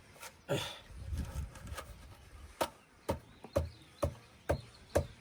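A run of heavy knocks, about two a second, each a sharp hit with a low thud, preceded by a brief scraping rustle.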